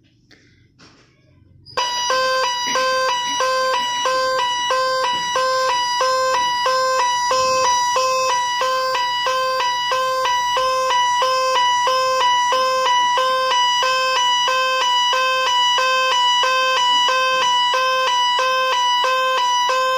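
Small speaker driven by a 555 timer IC siren circuit, starting about two seconds in with a harsh, buzzy electronic tone that alternates steadily between two pitches in a police-siren pattern.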